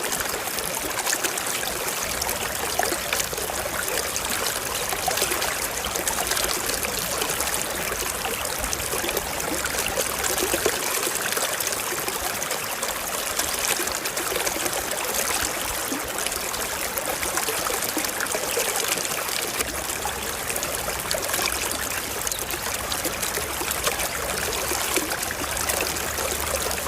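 River water flowing and trickling over stones: a steady, even rush with fine splashing and no pauses.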